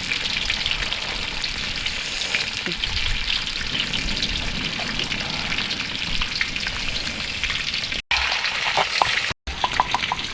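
Food frying in hot oil: a steady sizzle full of small crackles. The sound drops out abruptly twice near the end, and a few light clicks follow.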